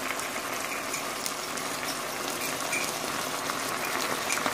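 Sauce simmering in a pan around pieces of grouper: a steady hiss with scattered small crackles.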